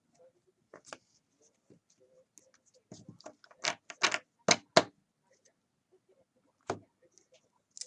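Sharp clicks and taps from handling trading cards and packs, with a quick run of four louder clicks about four seconds in and a single one later.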